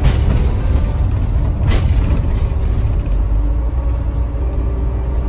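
Asa Coast Railway DMV93 dual-mode vehicle, a converted diesel microbus, running with a steady low engine and running rumble. Two sharp knocks stand out, one at the start and one under two seconds in.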